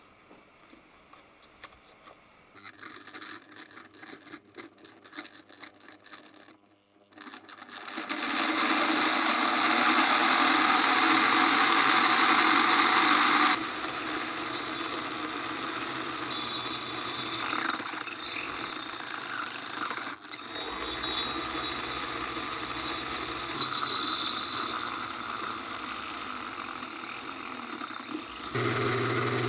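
Plastic parts rattling and clicking as they are handled, then from about eight seconds in an Ozito rotary tool spinning the blade of a small 3D-printed table saw: a loud steady whirring that drops somewhat in level after about five seconds and runs on.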